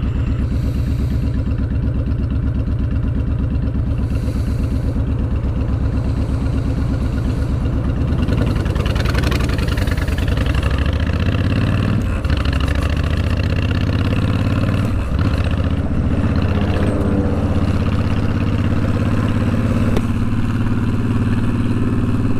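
Honda VTX1300's V-twin engine running loud under way, with a pulsing firing beat. About eight seconds in the engine note changes and picks up, then it runs on at a steadier pace.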